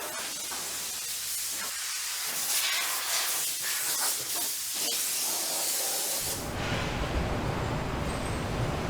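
Loud, steady high-pitched hiss of pressurised air or spray for about six seconds, cutting off sharply. A lower, rougher rumbling noise follows.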